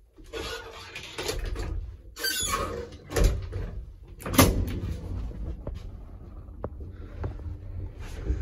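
Doors of an old ZUD passenger lift: a door squeaks and shuts with two heavy clunks, the loudest about three and four and a half seconds in. A couple of faint clicks and a steady low hum follow.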